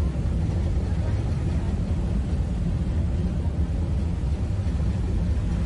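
Steady low rumble of a passenger ferry under way: engine drone mixed with rushing water and wind.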